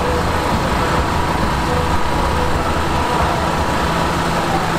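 Large farm tractor's diesel engine running steadily at low speed while it tows a heavy parade float.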